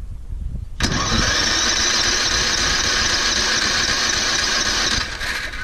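Electric starter of a Toro Recycler 20334's cold 190cc mower engine cranking. It cuts in about a second in, runs steadily for about four seconds and stops suddenly, without the engine catching.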